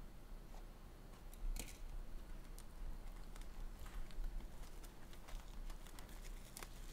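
Plastic shrink wrap being slit and torn off a cardboard trading-card hobby box: faint, scattered crackles and clicks, with a louder crackle about a second and a half in.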